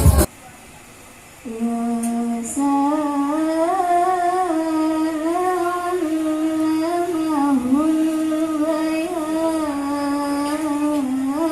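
A solo voice singing unaccompanied in one long, wavering wordless line that begins about a second and a half in. At the very start, tambourine-led music cuts off.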